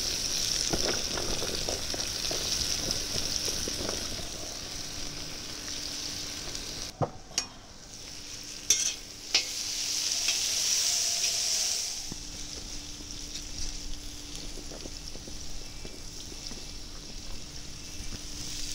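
Pork belly and diced carrots sizzling in hot oil in a kazan, stirred with a metal slotted spoon. A few sharp knocks of the spoon come about halfway through. The sizzle then swells for a couple of seconds and settles quieter.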